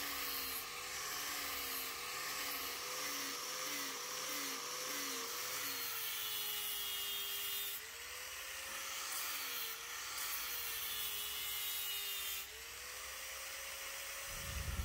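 Electric angle grinder with a sanding pad sanding a palm-wood axe handle. The motor's whine wavers up and down in pitch over the rasp of abrasive on wood.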